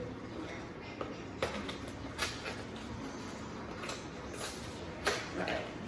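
A few light knocks and rustles of kitchen items being handled, over a steady low background hum.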